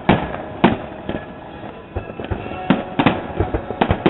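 Fireworks display going off: a run of sharp, irregularly spaced bangs, about five, each with a short echoing tail.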